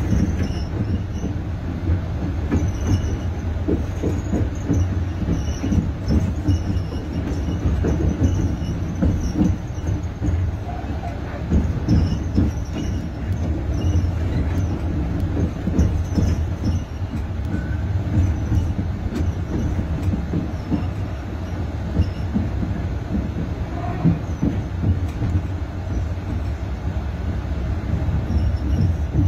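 Passenger train heard from inside the coach while running: a steady low rumble of wheels on the rails, with frequent knocks and rattles and brief high squeaks now and then.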